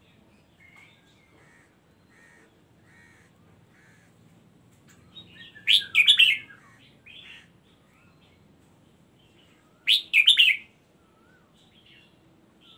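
Red-whiskered bulbul singing: soft chirps and short warbles throughout, with two loud, quick song phrases, one about six seconds in and another about ten seconds in.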